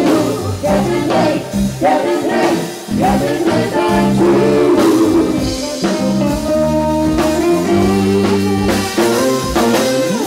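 Live band playing a blues-rock song with electric guitar, bass, drums and singing.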